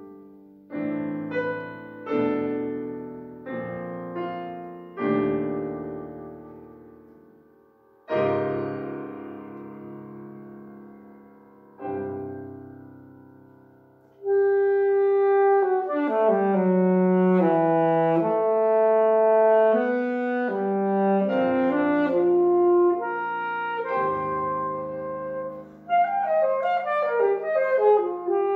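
Grand piano alone plays slow chords, each struck and left to ring away; about fourteen seconds in a saxophone enters with a sustained melody over piano accompaniment, moving into quicker runs of notes near the end.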